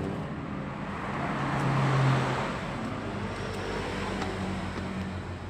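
A road vehicle passing by, growing louder to a peak about two seconds in and then fading, over a steady traffic hum.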